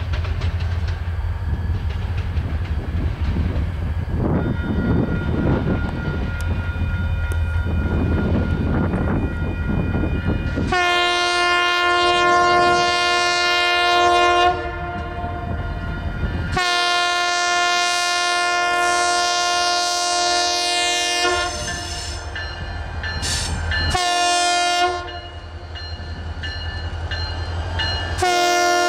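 A Union Pacific GP40-2 diesel locomotive approaches with a low rumble, then sounds its multi-note air horn in the grade-crossing pattern: a long blast, a second long blast, a short one, and a final long blast starting just before the end.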